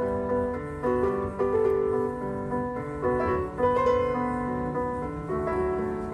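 Grand piano played with both hands: a melody of held notes over lower chords, the notes changing every half second or so.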